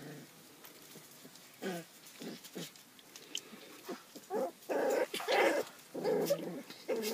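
Puppies play-fighting, giving short growls and yips: a few soft ones about two seconds in, then louder, closer-packed ones from about four seconds on.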